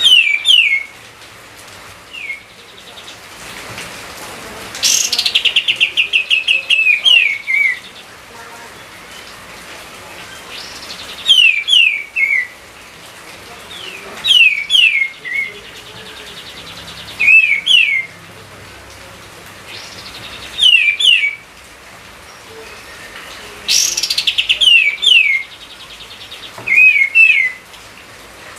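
A songbird singing loud, repeated short phrases every few seconds. Each phrase is two or three quick whistles that slur downward, and a few phrases open with a fast rattling trill.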